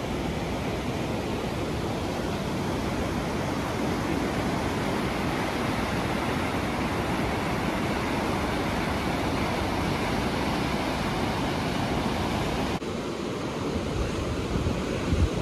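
Steady rushing noise with no separate events, spread evenly from low to high pitch. Its upper part drops a little about thirteen seconds in.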